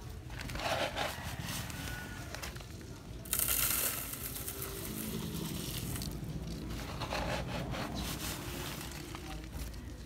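Sandy soil poured into a plastic mesh sieve, grains hissing and crackling on the wire screen in a few pours, the loudest a sudden rush about three seconds in.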